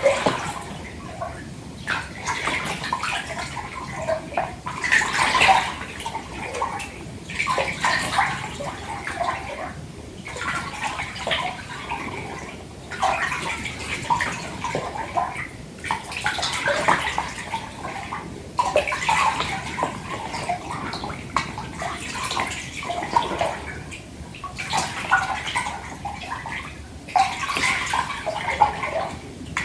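Water in a filled bathtub being sloshed by hand: irregular swells of splashing and lapping, one every two or three seconds.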